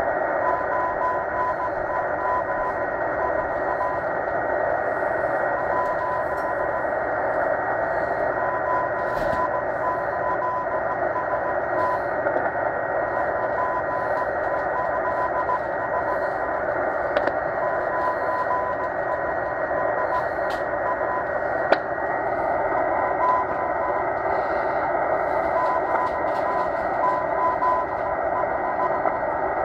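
Morse code from the M12 number station, received in upper sideband on a Tecsun H-501x portable shortwave radio: a tone near 1 kHz keyed on and off in dots and dashes, weak under loud shortwave hiss. A thin steady whistle sits above it, with a few crackles of static.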